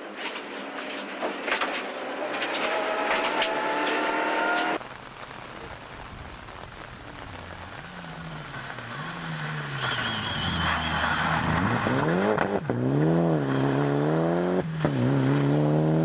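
Mitsubishi Lancer Evo VIII rally car's turbocharged four-cylinder engine at full throttle. First it is heard from inside the cabin, revving up steadily with sharp clicks. After about five seconds it is heard from the roadside, approaching with the revs rising and falling through gear changes and lifts, and growing louder as it nears.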